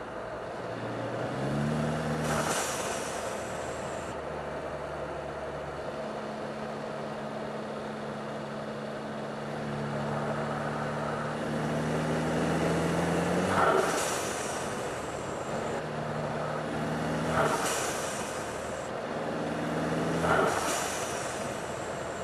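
Mercedes CLA250's turbocharged four-cylinder engine pulling up through the revs four times. Each pull ends in a sudden whoosh of the aftermarket Forge blow-off valve venting boost as the throttle closes, with turbo flutter.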